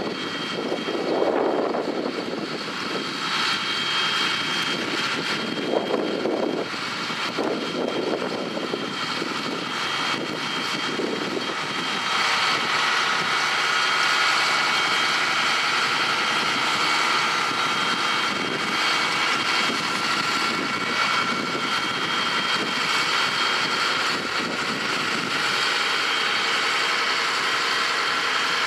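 John Deere tractor engine running steadily under load while pulling a drag-hose slurry injector, with a steady high whine that grows a little louder about twelve seconds in. Irregular low gusts of noise come and go during the first ten seconds or so.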